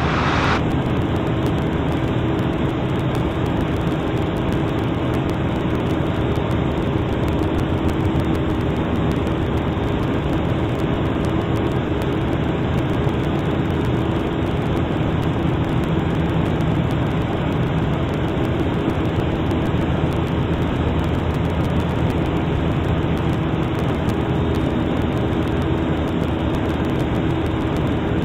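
Piper Super Cub's piston engine and propeller droning steadily in cruise, with an even, unchanging pitch.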